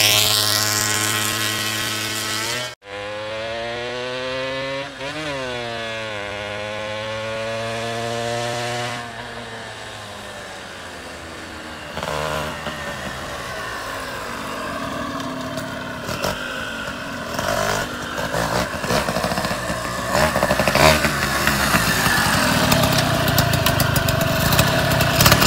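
Suzuki Crystal Jet 110 two-stroke motorcycle passing at speed, its pitch falling as it goes by, then fading into the distance. It then rides back and gets louder, running close by near the end.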